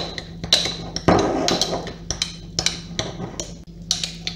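Metal teaspoon stirring thick, clay-like mustard paste in a small glass jar, clinking and scraping against the glass in quick, irregular taps.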